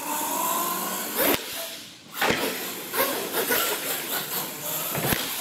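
Radio-controlled monster truck driving on a concrete floor: a motor whine rising slightly in the first second over steady tyre and drivetrain noise, with a few short knocks later on.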